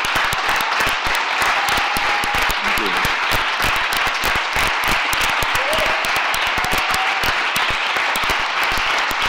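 A large audience applauding: dense, steady clapping with a few short cheers heard over it.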